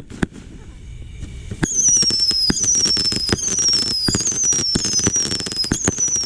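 A consumer fireworks cake firing. A few sharp pops come first, then from about a second and a half in a string of whistling shots, one roughly every 0.8 seconds, each whistle falling in pitch, over constant crackling.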